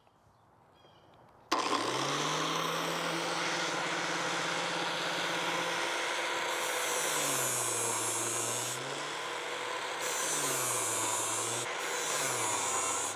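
A Harbor Freight angle grinder with a flap disc switches on suddenly about a second and a half in and runs steadily. Three times, once about halfway and twice near the end, its motor pitch drops under load and a hissing grind rises as a rusty factory Exmark mower blade is drawn through the disc in the jig to restore the 30-degree edge.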